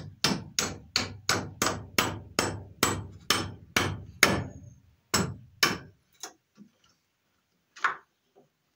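A hammer drives a nail into an old wooden barn beam with a steady run of about fourteen blows, about three a second. The blows stop about six seconds in, and a few lighter knocks follow. The nail is hard to drive: the wood is as hard as iron and the nail does not go through.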